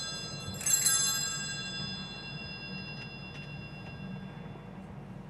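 Altar bells shaken once about half a second in, their many bright tones ringing on and fading away over a few seconds. They ring at the elevation of the chalice during the consecration of the Mass.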